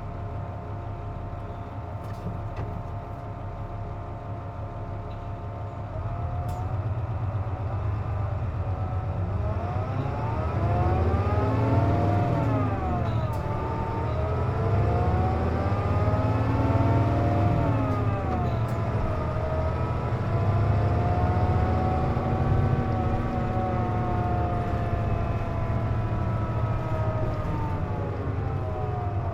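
Inside a Nissan Diesel JP (KC-JP250NTN) city bus: the diesel engine runs with a steady whine. About six seconds in it grows louder and sweeps up and down in pitch as the bus pulls away and changes gear. The uploader notes an abnormal noise with the air conditioning running.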